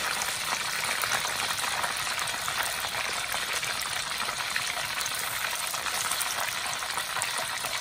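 Turmeric-marinated chicken pieces shallow-frying in hot oil in a wok: a steady sizzle with fine, continuous crackling.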